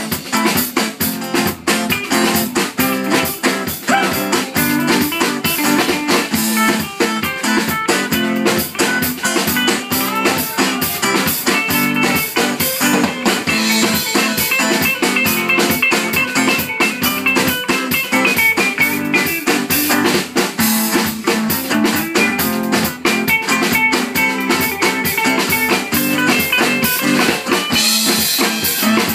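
Live band playing amplified music: two electric guitars over a drum kit with a busy beat.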